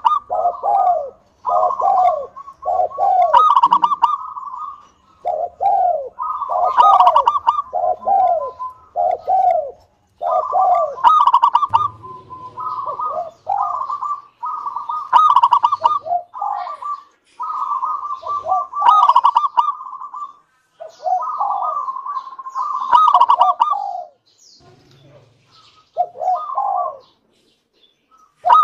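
Zebra dove (local perkutut) singing its cooing song over and over: phrases of rolling coos with falling notes, broken by short pauses.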